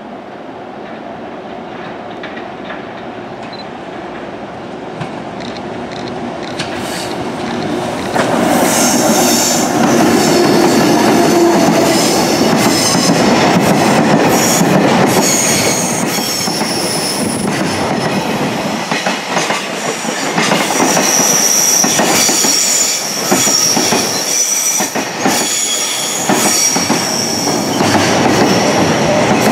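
Freight train hauled by an EH200 electric locomotive approaching, growing steadily louder for about eight seconds, then running close past. The container flatcars roll by with clattering wheels and a high-pitched wheel squeal on the curve.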